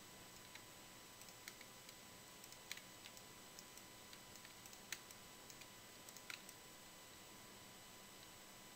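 Near silence broken by faint, scattered clicks of a computer mouse and keyboard, irregular and a few a second at most, a little stronger three times midway.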